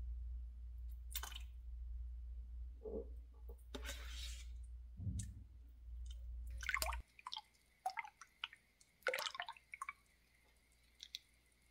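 Metal spoon scooping thick yogurt from a plastic tub and stirring it into a stainless steel pot of warm milk: soft wet squishes and scrapes with scattered small clinks of the spoon against the pot.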